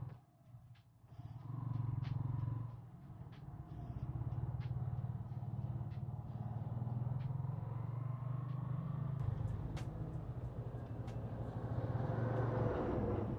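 Yamaha SZ16 motorcycle's single-cylinder four-stroke engine running while riding. The engine note drops away briefly about half a second in and again around three seconds in, then holds steady and builds near the end.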